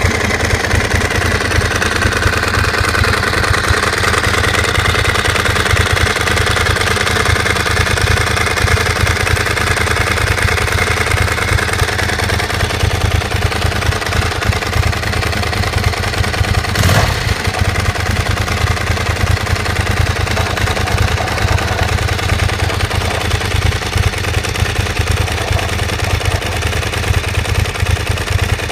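Ducati 999 L-twin engine idling steadily, with the odd noise its owner is puzzling over. A high whine sits over the idle and fades out about twelve seconds in, and there is one sharp click about two-thirds of the way through.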